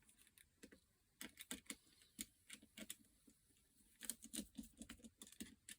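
Faint, scattered light clicks and taps in small clusters: small plastic parts of a hair straightener being handled as a silicone piece is pressed into its slot.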